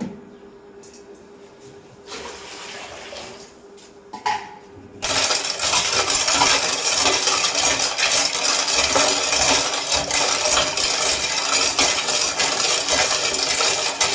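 Long steel ladle stirring water with lemons in a large steel pot, a steady loud swishing and splashing with frequent clinks of metal on metal, starting about five seconds in. Before that, only brief quieter splashes.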